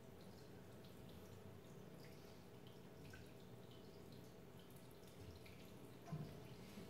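Near silence: room tone with a faint steady hum and scattered faint ticks, and one brief soft sound about six seconds in.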